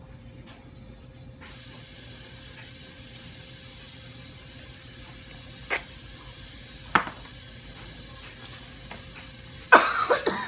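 Tap water running steadily, switched on about a second and a half in. Two short knocks sound in the middle, and a louder burst of noise comes near the end.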